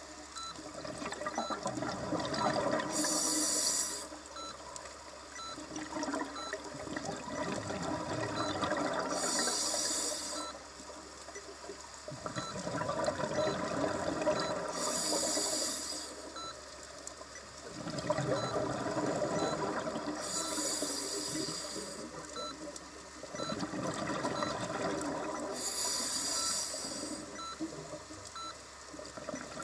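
A scuba diver breathing through a regulator underwater: a short hiss from each inhalation about every five to six seconds, five in all, each followed by a few seconds of gurgling exhaled bubbles.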